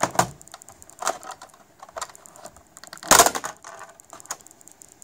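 Plastic snap clips of an HP Pavilion g6 laptop's bottom service cover clicking and cracking as the cover is pried off, with one loud crack about three seconds in. It sounds worse than it is: the clips are releasing, not breaking.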